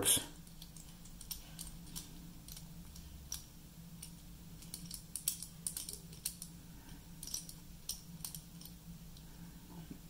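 Master Lock four-digit combination padlock's number wheels clicking faintly and irregularly as they are turned by thumb, over a low steady hum.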